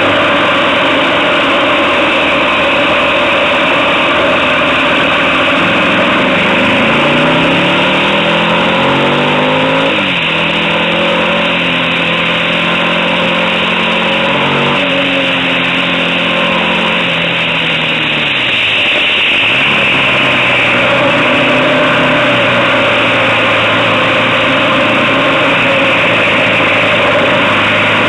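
Motorcycle engine under way on a winding mountain road, with heavy wind rushing over the camera microphone. The engine climbs in pitch about six to ten seconds in, holds, then falls away and picks up again near twenty seconds.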